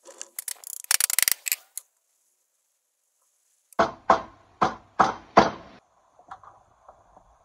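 Hammer knocking on the edge of a glued-up butcher-block panel of wooden boards held in bar clamps: five loud blows about two a second, then a few light taps. Near the start there is a quick clatter of wooden boards and clamp hardware as the panel is set in place.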